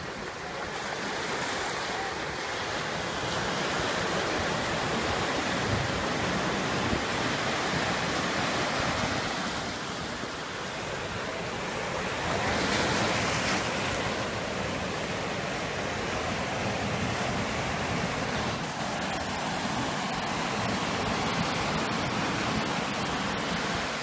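Sea surf breaking and washing up onto a sandy beach, a steady rushing wash that swells loudest about halfway through.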